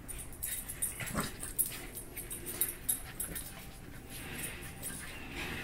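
Small dogs play-wrestling, with dog play vocalisations and scuffling as they tussle, in irregular short bursts.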